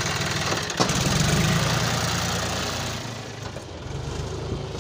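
John Deere 5042D tractor's three-cylinder diesel engine running, with a single brief knock just under a second in. The engine is louder for the next couple of seconds, then drops away about three seconds in as the tractor moves off.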